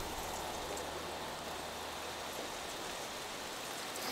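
Steady outdoor background hiss, even and unchanging, with no speech.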